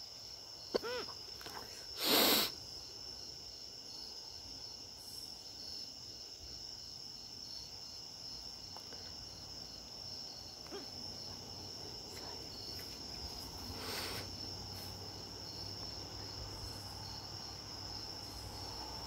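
Crickets chirping steadily in a high, even pulsing drone. About two seconds in there is a short loud rustle, with a brief squeak just before it, and a fainter rustle comes near fourteen seconds.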